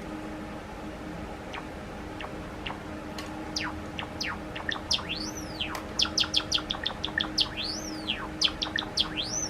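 Male Java sparrow singing. First come scattered single chirps, then about halfway through a quick run of clicking notes mixed with rising-and-falling whistled notes. A faint steady hum runs underneath.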